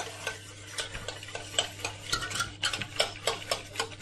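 Wire whisk stirring egg yolks in a cold saucepan, its wires tapping and scraping the pan about four times a second.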